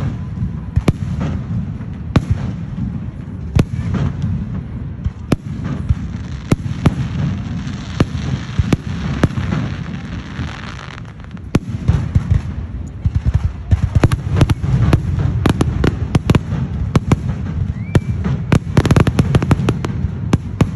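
Aerial fireworks going off in a rapid run of sharp bangs over a steady low rumble, the bangs coming thicker and louder from about halfway through.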